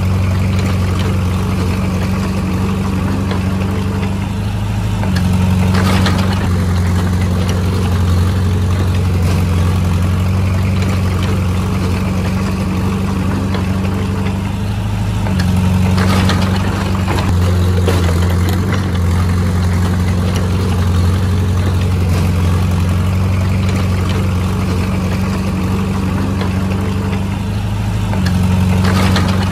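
Heavy diesel engine of earthmoving machinery running steadily, stepping up in pitch and loudness a few times as it takes load. A couple of short knocks sound over it.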